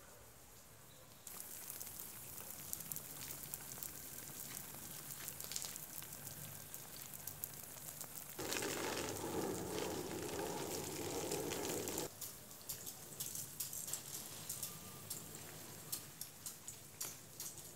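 Light rain pattering, a steady crackling hiss full of scattered drop ticks, with a louder rushing stretch of a few seconds in the middle.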